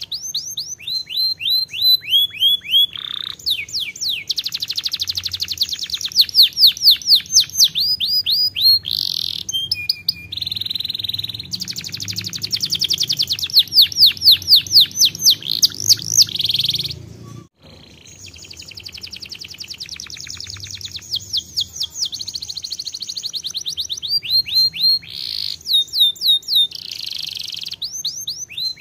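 Domestic canary singing a long song of rapid trills, each phrase a fast run of repeated high sweeping notes, one phrase following the next. The song breaks off briefly about two-thirds of the way through, then goes on.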